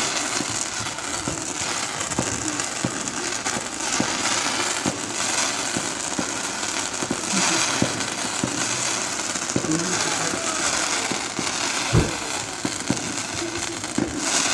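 Fireworks going off: continuous crackling with many sharp bangs, the loudest about twelve seconds in.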